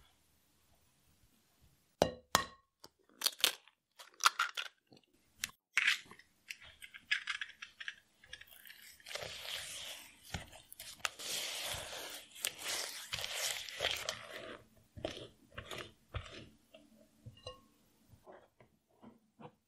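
Silicone spatula stirring and scraping a thick butter and brown sugar mixture in a glass bowl: a few sharp taps about two to four seconds in, then several seconds of steady wet mixing, with scattered light taps near the end.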